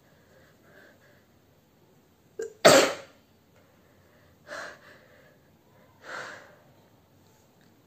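A woman sneezes once, loudly, about two and a half seconds in, with a short catch of breath just before. Two quieter breathy sounds follow over the next few seconds.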